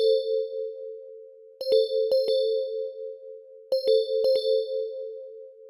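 Synthesized emergency-alert alarm tone. Pairs of bright metallic chime strikes about half a second apart repeat about every two seconds over a steady low two-note hum, fading away near the end.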